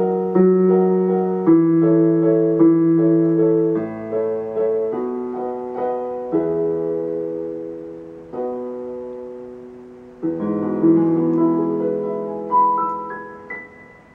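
Digital keyboard on a piano voice playing slow, sustained chords of an E major improvisation, with the melody in the left hand, growing gradually quieter. Near the end a few single high notes climb upward as the piece closes.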